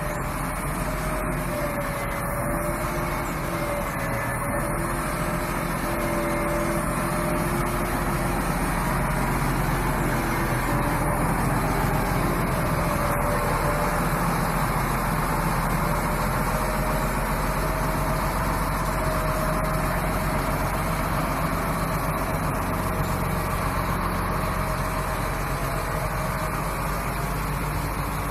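Lonking ZL50C wheel loader's diesel engine running steadily as the loader maneuvers slowly at low speed, with a higher tone coming and going over the drone.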